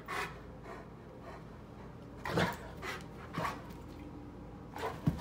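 A dog barking in short single barks during play, about half a dozen in all, most of them between two and five seconds in.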